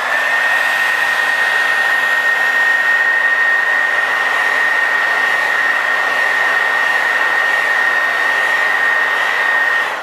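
Old Revlon hair dryer with a brushed motor running on its high setting: a steady rush of air with a high, even whine.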